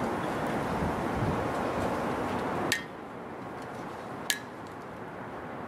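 Two sharp clinks of small glass cruets being handled on a table, each with a short ring, about a second and a half apart. They sit over a steady outdoor rushing background that drops away at the first clink.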